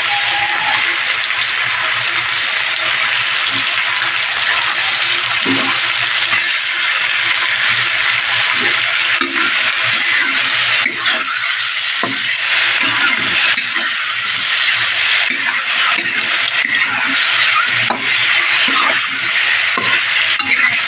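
Oil sizzling steadily as sliced onions, tomatoes and garlic fry in a metal pan. A metal spatula scrapes and clinks against the pan again and again as peeled boiled eggs are stirred through.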